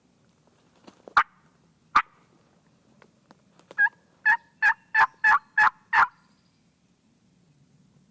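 Turkey hen calls, loud and close: two sharp clucks, then a run of about seven yelps, each note breaking from a higher pitch to a lower one.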